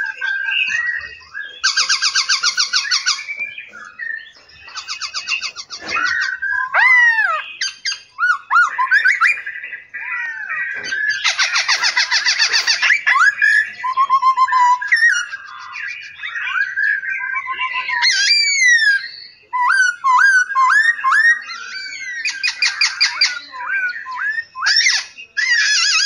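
Several songbirds singing at once: a varied run of whistled notes and rising and falling glides, broken several times by bursts of fast repeated notes that last a second or two.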